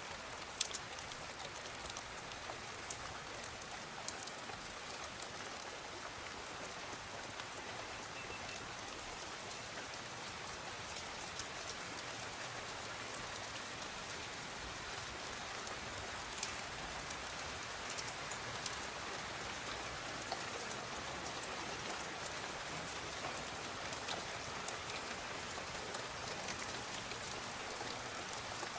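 Steady rainfall with a continuous hiss, and individual drops landing as sharp ticks scattered through it.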